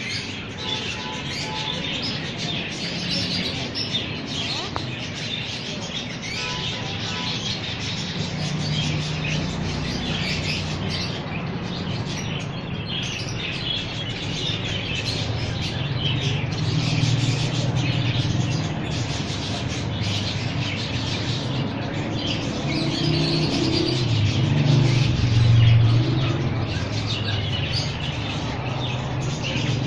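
Many small birds chirping and twittering continuously. A low rumble grows under them in the second half and is loudest near the end.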